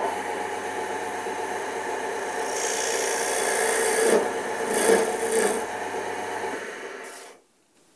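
Wood lathe motor running steadily while a hand chisel cuts a small spinning face-grain wooden plug, with a scraping, shaving sound that is strongest in the middle. The lathe is switched off and goes quiet about seven seconds in.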